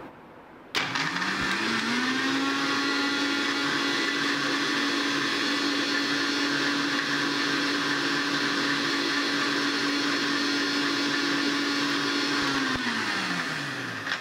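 Electric mixer grinder with a stainless-steel jar blending milk, coffee and ice cubes: the motor is switched on about a second in, spins up to a steady whine, runs evenly, then is switched off near the end and winds down with falling pitch.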